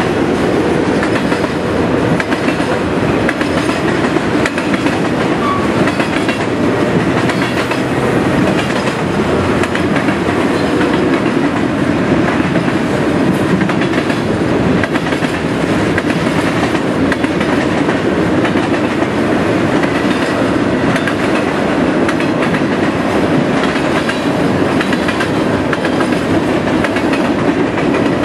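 Freight cars of a fast-moving Norfolk Southern mixed freight train rolling past, steel wheels clicking steadily over the rail joints in a continuous rumble.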